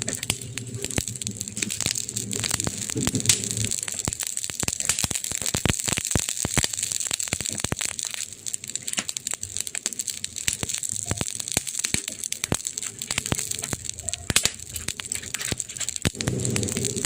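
Wood fire in a fireplace crackling: many irregular sharp pops and snaps over a steady hiss. A low rumble runs under it for the first few seconds and comes back near the end.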